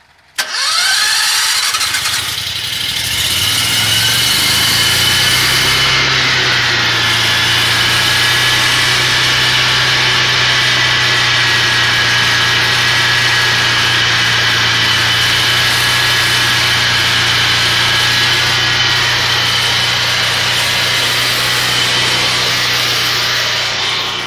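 Predator generator's engine electric-started on wood gas from the gasifier. It catches about half a second in, rises in pitch as it comes up to speed over the next couple of seconds, then runs steadily.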